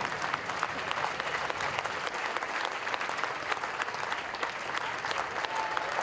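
Crowd applauding: many hands clapping steadily.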